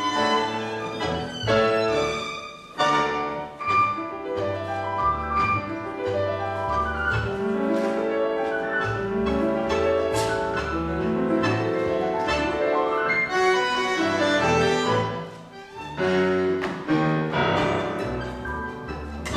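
A live tango orchestra playing, with violin, piano and double bass, and two short breaks in the music.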